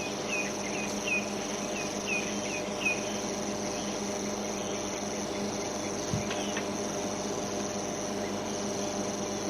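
Steady high-pitched insect chorus in the bush, with a quick series of short repeated chirping notes, about two a second, through the first three seconds.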